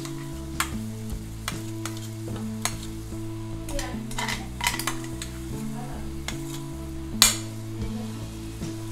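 Wooden spatula scraping and stirring onions, green chillies and whole spices frying in an aluminium pot, with a light sizzle. One sharp, loud scrape of the spatula against the pot a little after seven seconds in.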